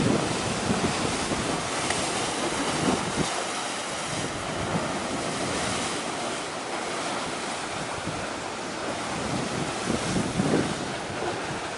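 Wind gusting on the microphone over a steady wash of sea waves, with low buffeting rumbles near the start and again near the end.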